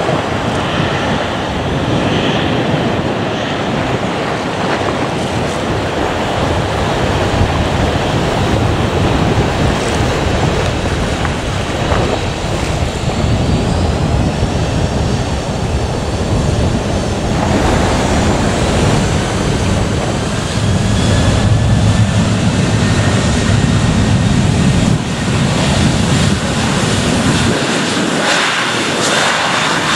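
Jet airliner engines heard as a steady, loud roar, with wind buffeting the microphone. About halfway through, faint high turbine whines that slowly shift in pitch join the roar.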